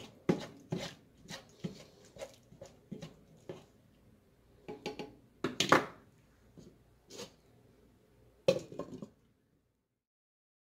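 Silicone spatula scraping and tapping against a stainless steel skillet in a quick run of strokes while stirring taco meat, followed by a few louder clatters of cookware about five to six seconds in and once more near the end.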